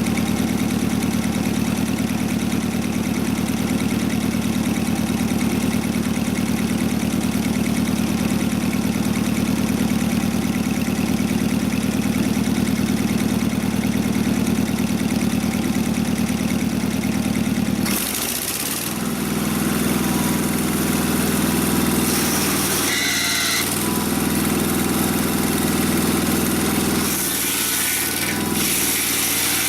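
Gasoline engine of a portable sawmill running steadily. About two-thirds of the way through, the sound changes abruptly: the engine note shifts and starts and stops, with bursts of hissing noise.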